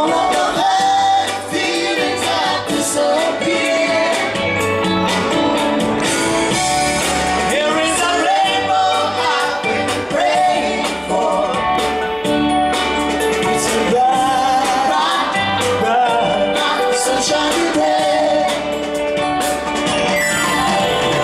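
Live reggae band playing, with electric guitars, drum kit and a singing voice over the top, heard from among the audience.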